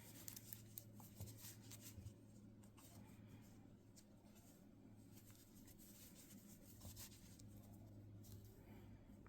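Faint rustling and light ticks of a crochet hook and yarn being worked into single crochet stitches, over a steady low hum.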